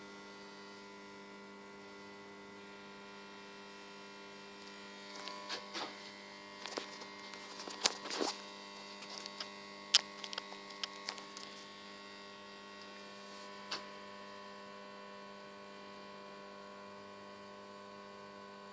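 Large welding transformer humming steadily at mains frequency while it drives alternating current through the test circuit. From about five to eleven seconds in, a run of sharp clicks and knocks from handling, with one more a couple of seconds later.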